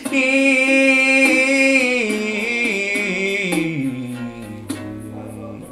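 A man singing a long wordless held note that winds down in pitch to a low note in the second half, over a steady rhythmic accompaniment.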